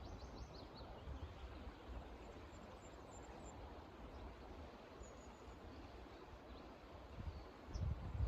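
Quiet outdoor ambience: a steady background hiss with a few faint, short, high bird chirps, and low gusts of wind buffeting the microphone at the start and again near the end.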